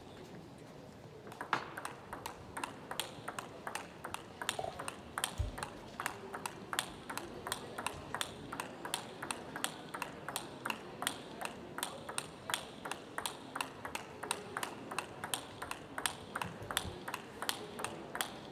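Celluloid-style table tennis ball clicking back and forth off bats and table in a long, fast rally: sharp, evenly spaced clicks, several a second, starting about a second in.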